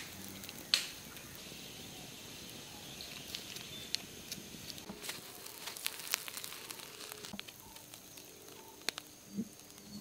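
Wood fire and glowing embers crackling quietly, with scattered small pops and snaps over a faint hiss.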